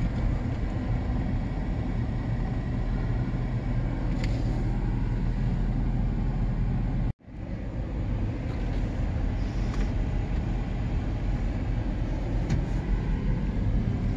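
Steady low engine and road rumble heard from inside a pickup truck's cab as it drives slowly. About halfway through the sound drops out for an instant and comes back.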